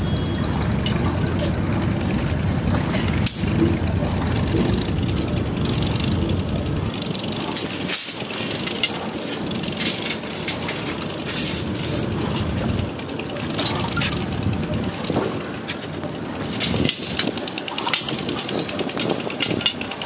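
Steel reinforcing bars clinking and knocking as they are handled, over a low rumble that thins out about seven seconds in.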